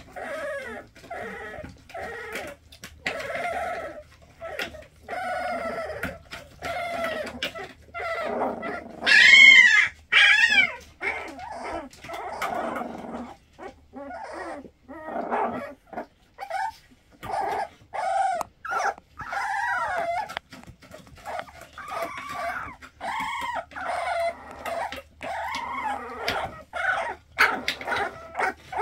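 A litter of young Pitsky-corgi cross puppies whimpering and squeaking in a steady run of short calls. A couple of louder, higher-pitched cries come about nine to ten seconds in.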